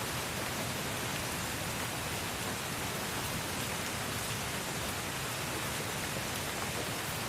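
Steady rain falling, an even hiss of rain with no other sound; a looped rain-ambience track.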